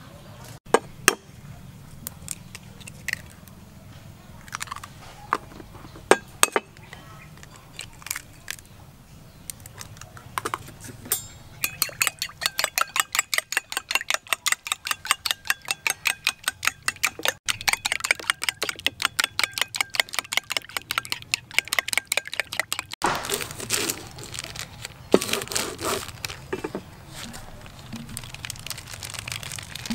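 Metal spoon beating egg yolks in a ceramic bowl: a fast, even run of clinks against the bowl, several a second. Before it come scattered sharp clicks and knocks, and near the end the crinkling of a plastic cheese wrapper being peeled open.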